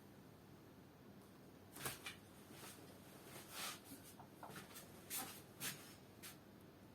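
A paintbrush working paint onto small areas of a shoe's leather: a handful of faint, short, scratchy strokes.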